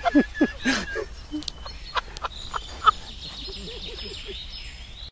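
Faint voices of people talking, with a few sharp clicks in between.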